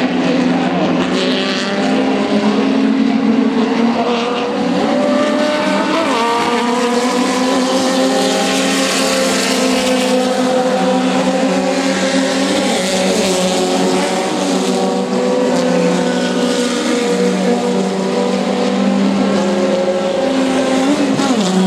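Several TC 4000 touring race cars running on the circuit at racing speed, their engine notes overlapping and rising and falling in pitch as they pass.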